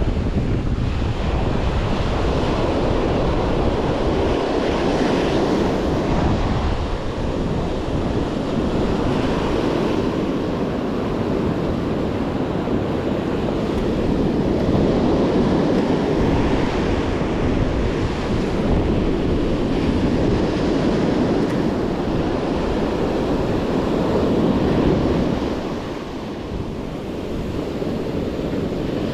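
Ocean surf breaking and washing up the sand, the rush swelling and easing every few seconds, with wind buffeting the microphone.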